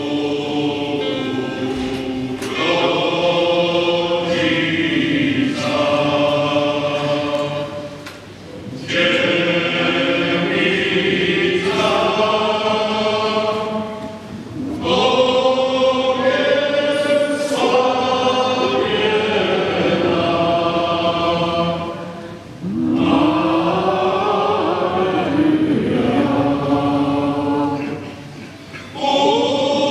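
Male choir singing in long phrases, with brief pauses for breath between them, the voices ringing in a large brick church.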